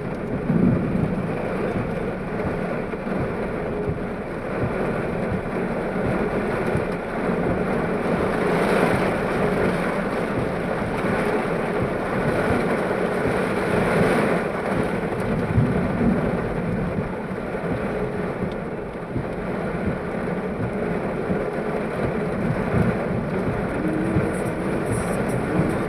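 Heavy, steady rain during an electrical storm, mixed with the noise of a vehicle on the wet highway. It swells a little twice in the middle.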